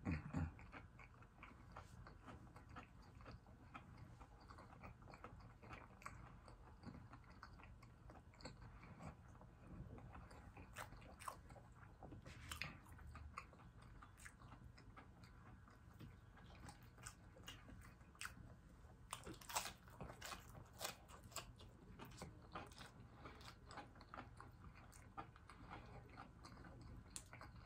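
A person chewing and biting into crispy battered fried fish and fried butterfly shrimp close to the microphone: quiet, scattered crunches and wet mouth sounds, with louder clusters of crunching about 12 seconds in and again around 19 to 21 seconds.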